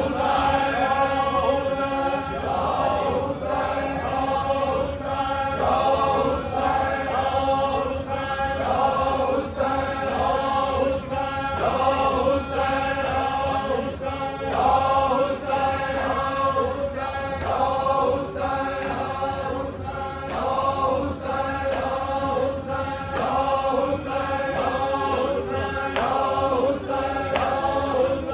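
A group of men chanting a Punjabi noha, a Muharram mourning lament, in unison, with faint regular slaps of matam (chest-beating) keeping time.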